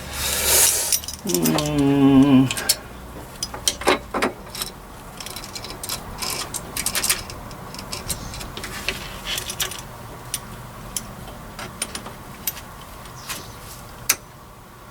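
Irregular light metallic clicks, taps and clinks of hand tools and engine parts being handled, with a louder single click near the end. A short drawn-out vocal sound comes about a second in.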